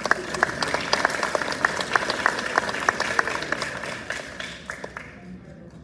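Audience applauding, with many hands clapping at once. The applause dies away near the end.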